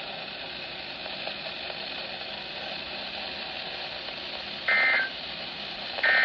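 Steady radio static hiss from a weather radio receiver, then two short bursts of warbling digital data tones, about a second and a half apart near the end: the EAS/SAME end-of-message bursts that close the broadcast alert test.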